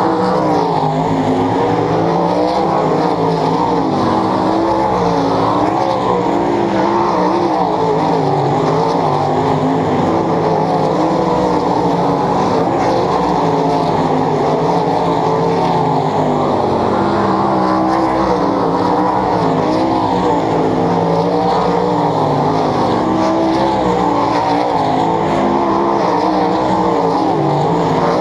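A field of World of Outlaws sprint cars' 410 cubic inch V8 engines running together around a dirt oval. Several engines overlap continuously, their pitches rising and falling as the cars accelerate down the straights and lift for the turns.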